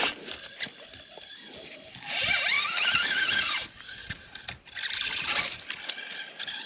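Fishing line hissing off a spinning reel's spool as a baited rig is cast, lasting about a second and a half, then a shorter, higher hiss about five seconds in.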